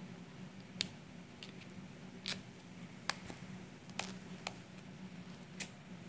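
A handful of faint, sharp, irregular clicks and ticks as a needle and fingers pick at the frayed edge of a cotton cloth to tease out its yarns, over a low steady hum.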